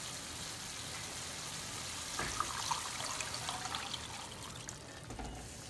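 Warm milk poured into a pan of hot, simmering gravy, a liquid trickle and splash. It runs over the gravy's steady sizzle as it is stirred with a wooden spoon.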